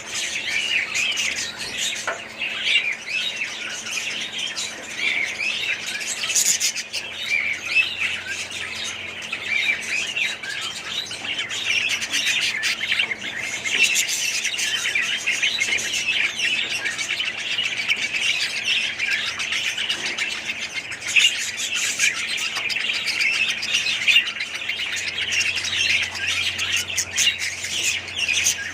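Many budgerigars chirping and chattering together, a dense, unbroken flock chorus of overlapping short high chirps.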